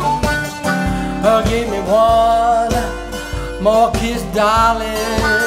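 Acoustic blues: a twelve-string acoustic guitar strumming a steady rhythm, with harmonica at the start and a male voice singing held, wavering notes.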